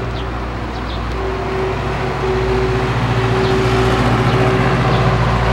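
A motor engine running steadily with a low hum, growing louder from about halfway through.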